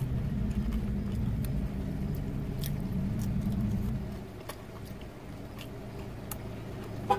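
Steady low hum inside a parked car, easing off about four seconds in, with close-up chewing and scattered small clicks.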